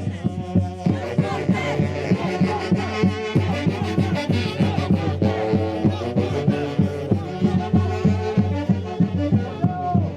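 Santiago, the Huancayo festival music, played by a band, with pitched instruments over a steady, regular beat.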